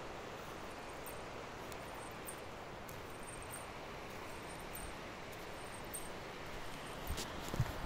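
Steady rushing of a shallow, rocky river flowing, with a couple of low thumps near the end.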